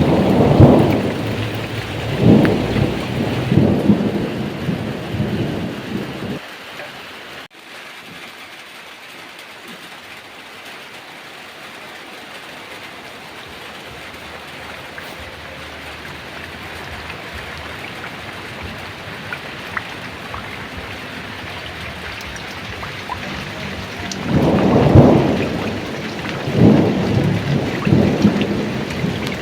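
Heavy rain pouring steadily, with two long rolls of thunder rumbling in several waves: one at the start fading out over about six seconds, and another building up near the end. The sound cuts out for an instant about seven seconds in.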